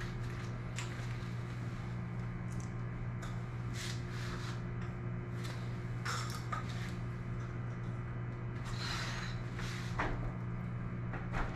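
Light clicks, taps and rustles of hands handling parts and a drill at a metal garage door, over a steady low hum.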